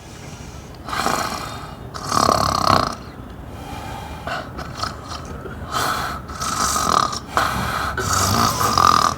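A woman snoring in a run of separate snores, each about a second long, with short pauses between them.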